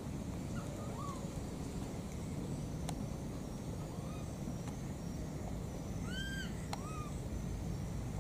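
Baby monkey giving short, high calls that rise and fall, calling for its mother: a faint one about a second in and a louder pair about six seconds in. A steady low rumble runs underneath, with a few faint clicks.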